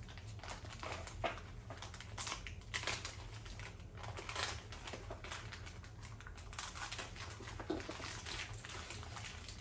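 Clear plastic bags crinkling and rustling as they are handled, with scattered light clicks and taps from the small parts inside.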